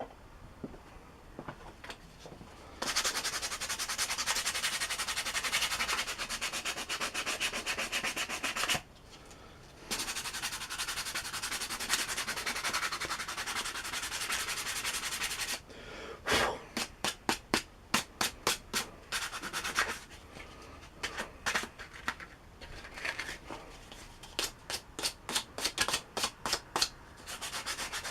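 A wooden drill handle being rubbed down by hand with an abrasive, ready for varnish. First come long, steady rubbing passes, then quick back-and-forth strokes at about two to three a second.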